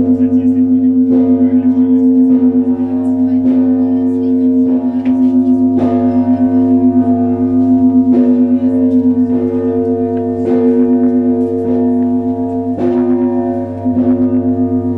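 Russian Orthodox church bells of the Trinity-Sergius Lavra belfry ringing: several bells struck roughly once a second, each stroke ringing on over a steady hum from the larger bells.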